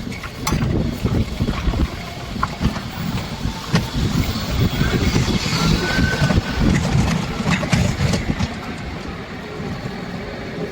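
Homemade 72-volt electric four-wheel-drive off-roader on the move: an uneven low rumble of wind buffeting the microphone and the tyres and chassis, with scattered knocks and rattles.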